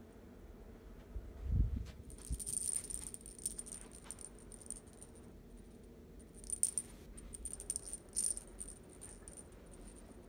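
Feathered owl cat toy on a wand string rattling and jingling in short bursts as it is jerked across the carpet and batted at, about three times. A low thump comes about a second and a half in.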